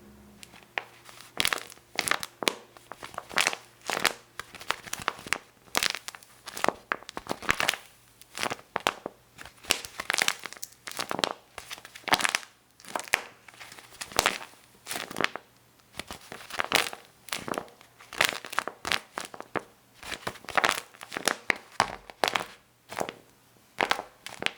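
A handmade paper squishy crinkling and crackling as it is squeezed and handled, in quick, irregular bursts with short pauses between them.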